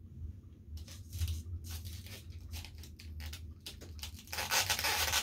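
Hands handling the race setup: a run of small clicks and taps, then a louder rustling scrape from about four seconds in, over a steady low hum.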